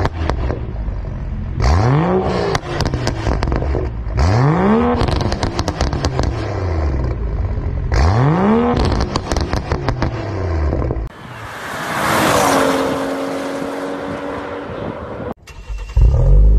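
BMW 3 Series exhaust, with its valved sport axle-back set to the hardest mode, free-revving in three sharp blips about three seconds apart. This is followed by a hissing stretch whose pitch falls and settles into a steady drone. Near the end, another BMW's modified exhaust cuts in loudly.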